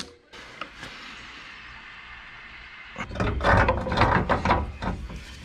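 Ratchet wrench clicking in quick, irregular runs, starting about three seconds in, as nuts are tightened on a front strut spacer plate.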